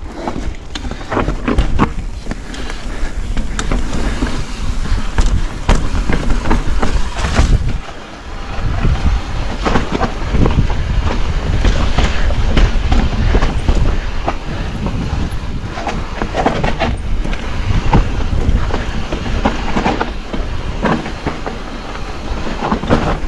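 Mountain bike riding fast downhill over rough ground: a continuous clattering rattle of the bike with frequent sharp knocks and a low rumble. It eases briefly about a third of the way in.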